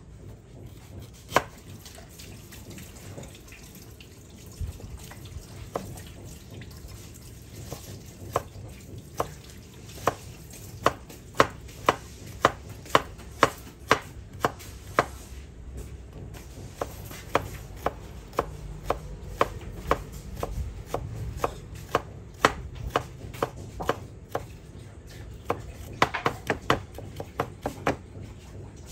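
A chef's knife chopping ginger root on a wooden cutting board: sharp knocks of the blade on the board, scattered at first, then a steady run of about two a second that gets quicker near the end.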